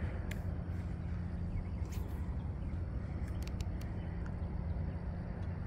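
Steady low outdoor rumble, with a few faint, short clicks scattered through it.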